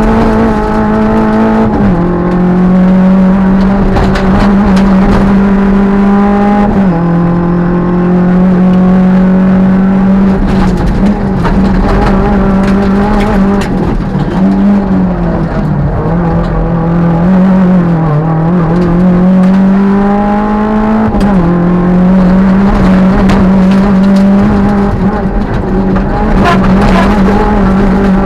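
Peugeot 205 rally car's four-cylinder engine heard from inside the cabin, pulling hard through the gears: the pitch climbs steadily and drops sharply at upshifts about 2 and 7 seconds in. Around the middle the revs sag and then build again before another sharp drop and climb.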